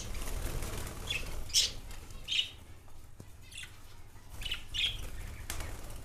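Budgerigars in a cage giving several short, high chirps, with wings flapping as a bird flies across the cage at the start.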